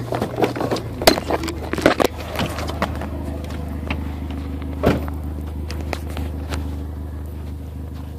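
Honda CR-V engine running with a steady low hum, with scattered knocks and crackles through the first few seconds and one louder knock about five seconds in.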